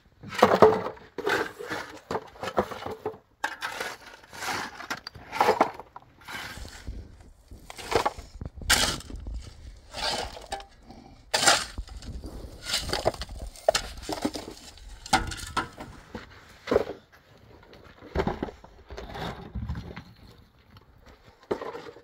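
Irregular knocks and cracks, a few every couple of seconds: something being broken, crushed or handled by hand.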